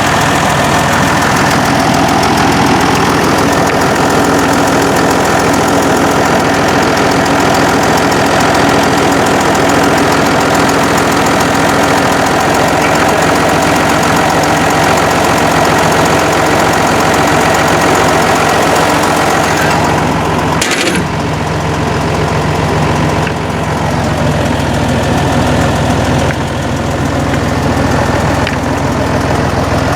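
John Deere 6068 six-cylinder diesel in a Fabtek 153 harvester idling steadily, run after a thermostat replacement to check for coolant leaks. A single sharp click about two-thirds of the way in, after which the sound is duller.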